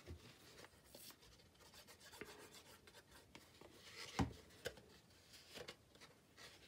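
Faint rubbing and scraping of a folded cardstock box being handled and slid about, with small clicks and a soft knock about four seconds in.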